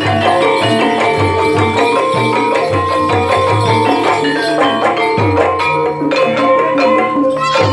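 Javanese gamelan music for a kuda lumping horse dance: kendang hand drums beat a steady pattern under ringing bronze gong-chime and metallophone notes.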